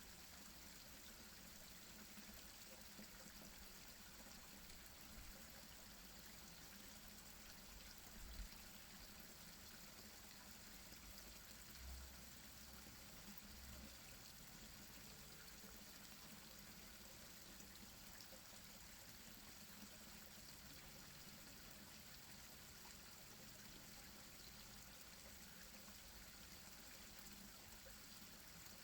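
Small garden pond waterfall, water pouring and splashing steadily and faintly into the pond. A couple of brief, faint low bumps come about eight and twelve seconds in.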